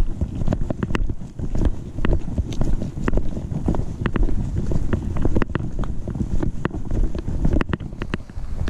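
Walking noise picked up by a GoPro clipped to a backpack chest strap: an uneven low rumble of wind and body movement on the microphone, jolting with each step, with frequent small clicks and knocks.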